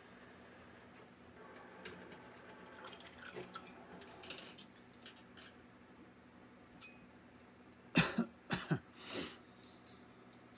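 A person coughing three or four times in quick succession near the end, after a few seconds of light, scattered clicks and rattles of small objects being handled.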